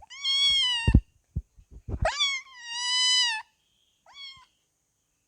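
A kitten meowing three times: two long, high meows, the second rising at its start, and a short one near the end. A few dull knocks fall around and between the first two meows.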